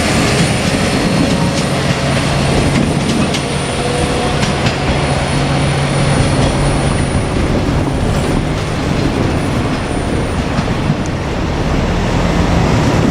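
Two-car KiHa 47 diesel railcar set running past. Its diesel engine gives a steady low drone under continuous wheel-on-rail noise, with a few clicks about three to four and a half seconds in.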